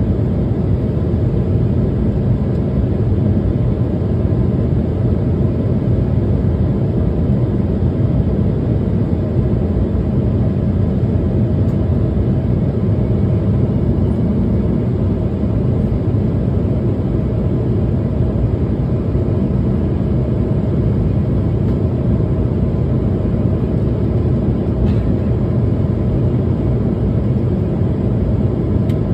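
Steady cabin roar of an Embraer E190 airliner in flight: airflow and its GE CF34 turbofan engines, an even low rush that does not change.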